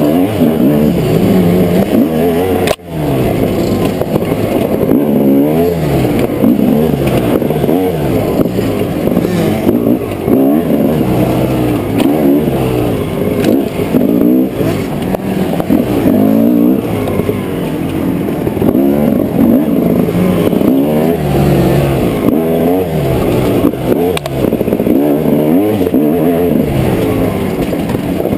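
Dirt bike engine heard from on the bike, revving up and down over and over as the rider twists the throttle and shifts along a rough trail. The engine sound briefly drops out about three seconds in.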